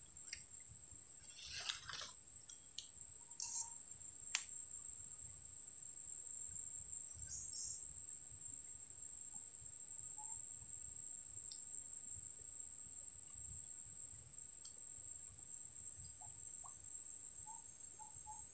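Insects trilling in one steady, high-pitched drone, with a few short clicks in the first five seconds.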